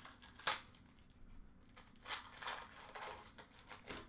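Foil hockey-card pack wrapper being torn open and crinkled, with cards rustling: a sharp crackle about half a second in, then several short bursts of rustling.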